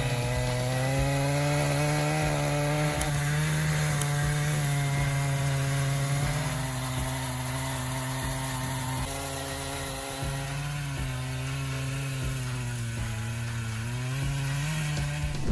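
Chainsaw cutting wood, its engine running steadily under load with the pitch wavering a little.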